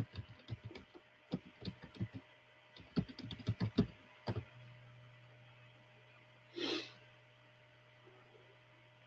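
A run of irregular sharp clicks and taps for about four seconds, some in quick clusters, then a short breathy hiss about seven seconds in, over a faint steady hum.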